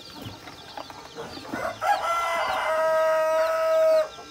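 A rooster crows once, a loud, long held call that starts about two seconds in and breaks off suddenly about two seconds later. Chicks cheep faintly before and under it.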